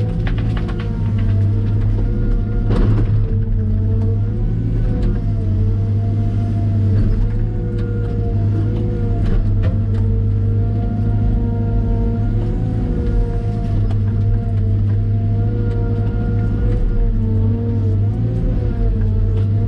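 Cat M313D wheeled excavator's diesel engine running steadily, its note wavering slightly in pitch as it works. A few sharp knocks sound over it, the loudest about three seconds in.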